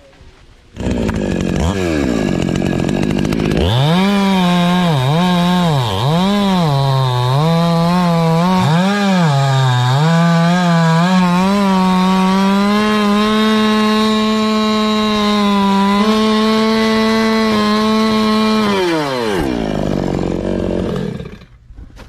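Petrol chainsaw running at full throttle while cutting through a coconut palm trunk. Its engine pitch dips and recovers several times, then holds steady through the cut, and drops away near the end as the throttle is released.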